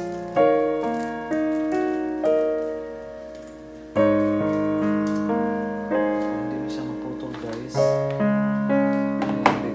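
Background piano music: a melody of struck notes that ring and fade, with a sharp knock near the end.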